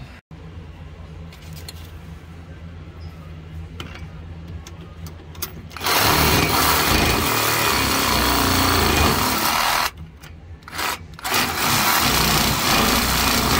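A power tool run hard in two long bursts, about four seconds and then about two seconds, with a short pause between, working on a seized sway bar link whose nut spins instead of loosening.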